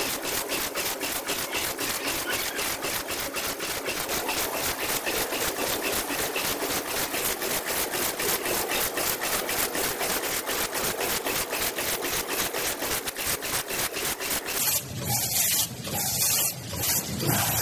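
Automatic packing machinery on a compressed-biscuit line running: a fast, even mechanical clatter of about four to five clicks a second. About three seconds before the end the sound cuts to a louder, lower, uneven noise with slower pulses.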